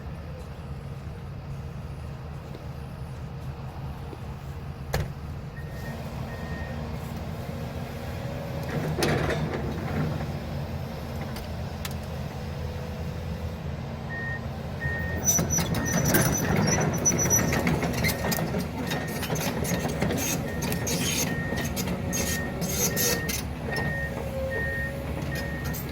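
Heavy demolition machinery running a steady diesel engine while tearing down a house, its warning alarm beeping briefly early on and then repeating steadily from about halfway. From a little past halfway, loud clattering and cracking of wreckage being broken and moved.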